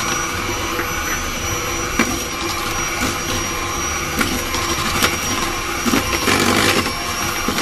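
Electric hand mixer running steadily, its beaters whirring through thick butter batter with cornstarch, with a thin high motor whine and a few short knocks of the beaters against the stainless steel bowl.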